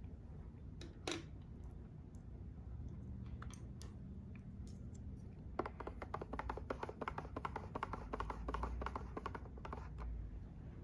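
Close-up makeup handling sounds: a few sharp clicks, then about four seconds of rapid tapping and scratching.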